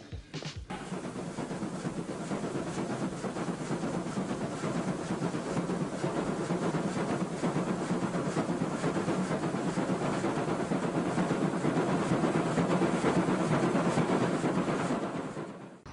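Steam locomotive working hard under load, a dense rush of exhaust and running noise that grows louder, then falls away sharply near the end.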